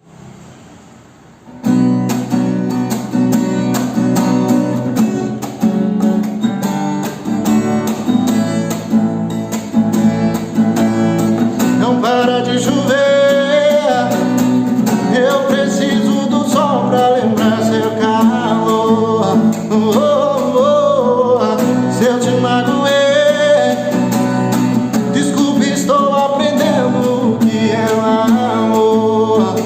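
Acoustic guitar strumming the intro of a sertanejo ballad, coming in about a second and a half in. From about twelve seconds in, a gliding melody line joins above the chords.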